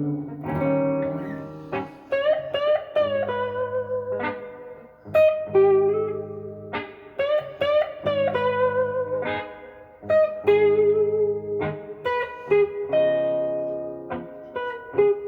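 Gibson SG Special electric guitar on its neck pickup, played through a Fender Blues Junior IV amp: a slow blues lead of single notes with string bends and vibrato over held chords.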